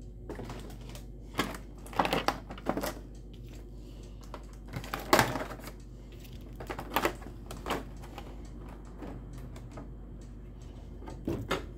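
Stiff clear plastic blister packaging being handled and pried open: irregular clicks and crackles of the plastic, in several clusters, the loudest about five seconds in.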